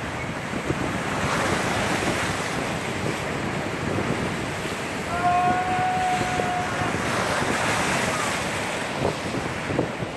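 Sea surf washing against the rocks, with wind buffeting the microphone. A brief held high tone sounds about halfway through.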